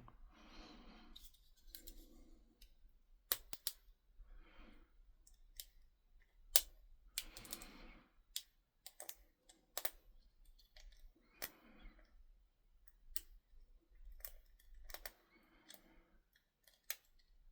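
Picking a 30mm Abus padlock with a hook pick and a narrow tension wrench: irregular sharp metallic clicks as the pick works the pins and pins set, with soft faint handling noise between them.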